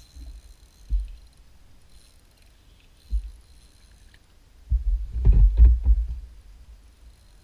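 Dull thumps and knocks from a small boat's hull as it is jostled while a fish is fought on rod and reel: single thumps about one and three seconds in, then a burst of louder, quick knocks lasting about a second and a half, starting a little before the five-second mark.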